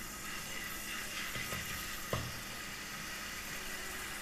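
Garlic paste sizzling faintly in a spoonful of hot cooking oil in a nonstick frying pan as it begins to brown. A wooden spatula knocks lightly once against the pan about two seconds in.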